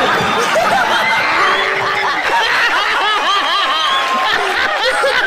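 A TV studio audience and guests laughing hard, many voices at once.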